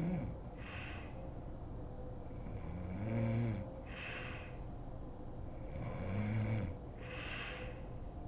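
A sleeping woman snoring in a steady rhythm about every three seconds. Each breath is a low, pitched snore that swells and fades, followed by a breathy hiss.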